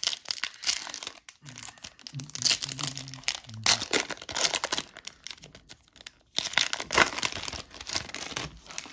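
Foil wrapper of an O-Pee-Chee Platinum hockey card pack being torn open and crinkled by hand, in irregular crackling bursts as the cards are pulled out.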